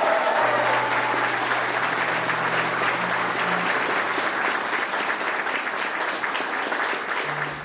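Wedding guests applauding and cheering after the first kiss, with a voice whooping in the first second. Low, held music notes sound faintly underneath, and the applause dies away near the end.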